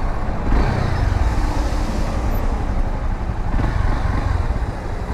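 Honda Sahara 300's single-cylinder engine running steadily at low road speed in slow city traffic, mixed with the noise of the surrounding cars and motorcycles.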